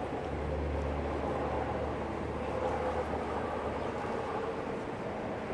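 Steady outdoor background noise with a low engine hum from nearby traffic that fades out a little past halfway.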